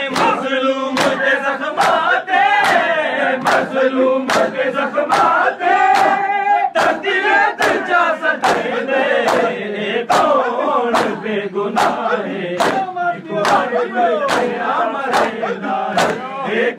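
Crowd of men chanting together over the sharp slaps of matam, open hands striking bare chests in a steady beat of about two a second.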